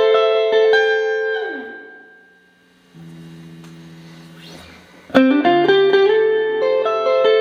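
Clean electric guitar, a Stratocaster, played through a Boss RV-6 reverb pedal into two Roland JC-120 amps. Picked notes ring out and fade about two seconds in, a quiet held low chord follows, and a loud new phrase starts about five seconds in.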